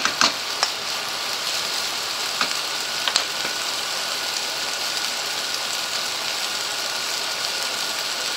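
Diced onions and carrots sizzling steadily as they fry in a non-stick wok, with a few sharp clicks of a wooden spoon against the pan in the first three seconds or so.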